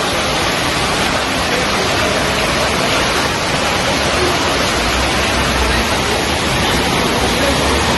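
A loud, steady rush of water from the flooding, with a deeper rumble coming in about halfway through.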